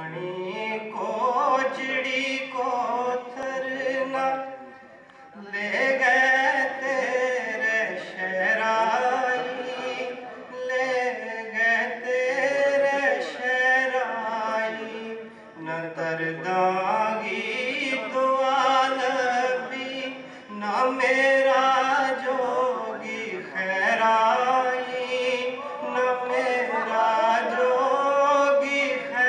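A man singing a Gojri ghazal in long, held, wavering phrases, with a short break about every five seconds.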